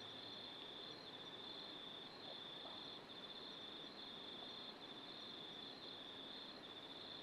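A night insect trilling high and thin, in repeated half-second pulses with short breaks, over faint background hiss.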